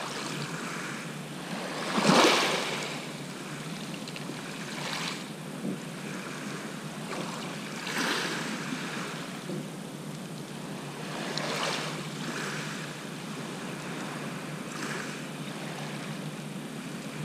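Small sea waves breaking and washing on the shore, a swell of surf about every three seconds, the loudest about two seconds in.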